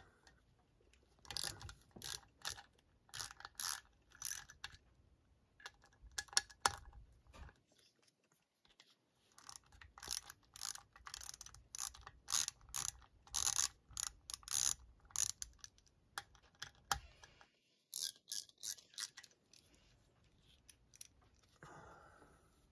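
Small hand socket ratchet clicking in quick runs of clicks with short pauses, as the three bolts holding a Ford alternator's housing together are backed out.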